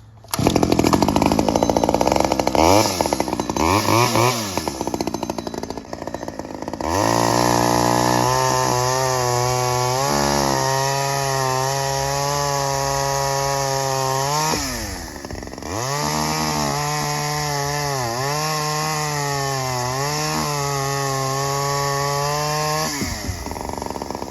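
Stihl 009L two-stroke chainsaw running at high revs: rough and noisy for the first few seconds with a couple of quick revs, then holding a steady high engine note that sags and picks back up about halfway through and wavers a couple of times after.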